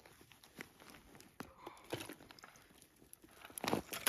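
Handling noise from working an ice-fishing tip-up and its line at a hole in the snow: scattered light clicks and rustles of gloves, clothing and snow. A louder crunching scrape comes about three and a half seconds in.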